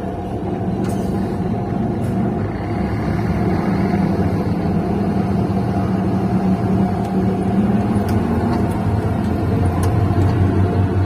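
Scania K380 coach's diesel engine running steadily, growing a little louder near the end.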